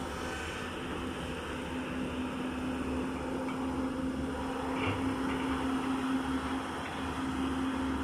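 Diesel engines of Caterpillar hydraulic excavators running steadily while digging, the nearest a CAT E200 raising and swinging its bucket. A constant drone over a low rumble, growing slightly louder in the middle.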